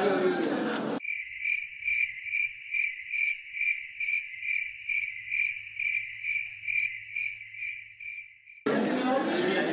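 Cricket chirping sound effect: a steady run of high chirps, about two and a half a second, with all other sound cut away. This is the 'awkward silence' gag. It replaces the counter noise and talk about a second in, and the noise comes back near the end.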